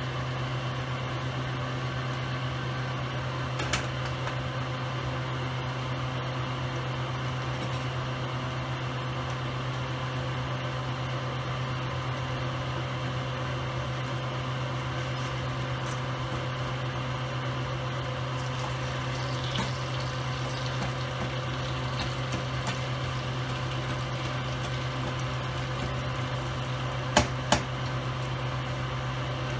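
A steady low hum with an even hiss over it, typical of a running kitchen appliance or pot on the stove. There is a light knock about four seconds in and two sharp knocks near the end.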